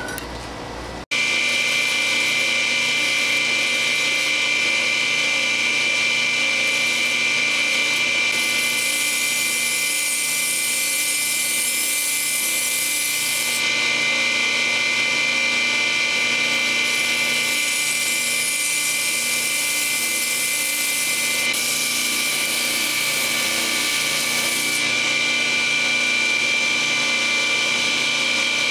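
Belt grinder running with a steady whine, a steel chef's knife blade held against the belt to grind back its bevel. A high grinding hiss swells in three long passes of several seconds each.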